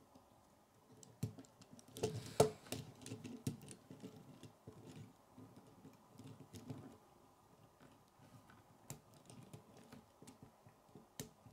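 Plastic K'nex pieces clicking and rattling as they are handled and fitted onto a model truck, in scattered clicks with the loudest cluster about two seconds in.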